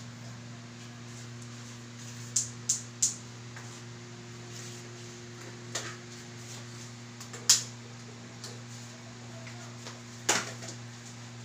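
Sharp clinks of a metal utensil against an aluminium pot of boiling potatoes being checked for doneness: three quick clinks about two seconds in, then single ones a couple of seconds apart, over a steady low hum.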